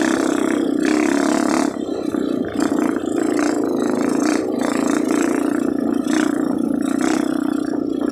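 Dirt bike engine running steadily under way on a rough trail, heard from on board the rider's own bike. Its note dips briefly a few times, about two seconds in and again about four seconds in, as the throttle eases.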